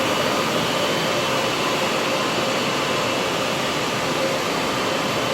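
ICE RS32 ride-on floor scrubber running: a steady whir of its motors and suction, with a faint steady whine over it.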